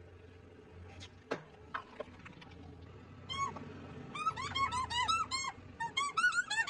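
Rubber ducks squeaking one after another as a car tyre rolls over a row of them: a quick string of short squeaks, each rising then falling, starting about three seconds in and coming faster and louder near the end. A few sharp clicks come before the squeaks.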